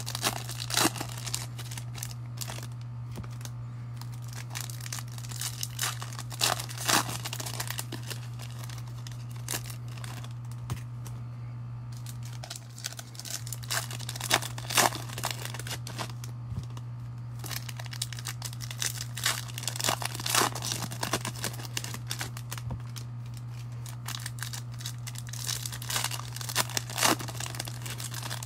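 Plastic-foil trading-card pack wrappers of 2020 Topps baseball cards crinkling and tearing as they are handled and ripped open, in irregular clusters of crackles over a steady low hum.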